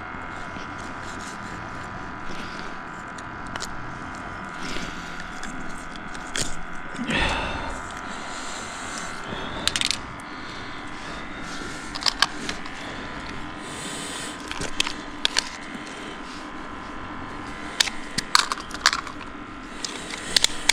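A steady electrical buzz with several held tones runs throughout. Scattered clicks and knocks sit on top of it, with a louder rustle about 7 seconds in.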